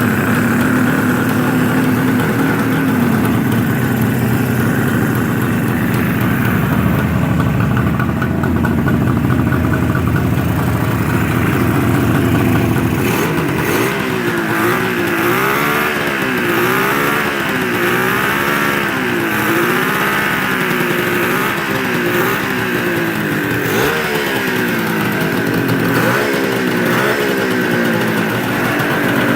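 1974 Suzuki GT550's air-cooled two-stroke triple running on its first start after restoration. It runs steadily for about half the time, then is revved repeatedly, the pitch rising and falling every second or two.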